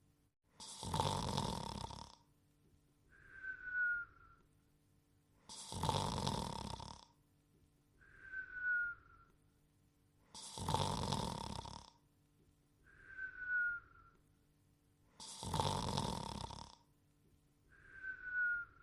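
Cartoon snore-and-whistle sound effect of a sleeping dog character: a loud rasping snore alternating with a short, slightly falling whistle, repeating about every five seconds. There are four snores and four whistles, and the last whistle is cut off at the end.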